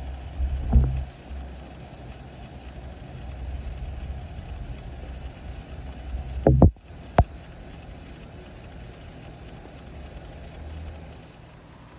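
Rain-O-Mat brass ball-drive sprinkler running, a steady hiss of water spray over a low rumble. Sharp knocks come about a second in and twice around six to seven seconds in.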